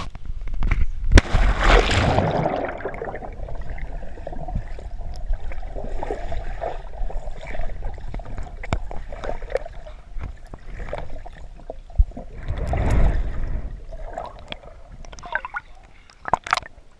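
Swimming-pool water heard from beneath the surface: a splash about a second in, then muffled sloshing and gurgling with small clicks, and another rush of water about two-thirds of the way through.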